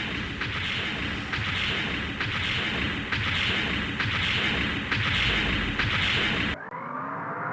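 Dubbed anime-style mecha sound effects for the giant moving Gundam: a rhythmic series of heavy, noisy mechanical hits, about one a second. Near the end it cuts abruptly to a rising whine.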